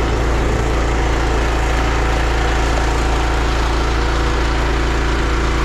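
Pressure washer's engine running steadily, with an even hiss of water spraying through the jetter hose.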